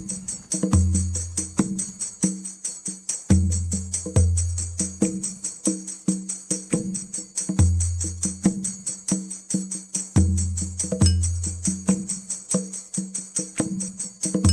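Background music with a steady, quick percussive beat over a constant high jingle, and deep bass notes held for about a second every few seconds.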